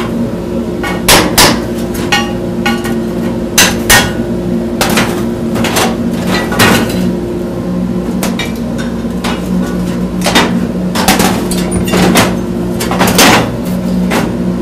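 A hammer striking 5/8-inch steel plate to knock freshly plasma-cut parts loose from the sheet. It lands a dozen or so sharp, irregularly spaced metallic blows over a steady machine hum.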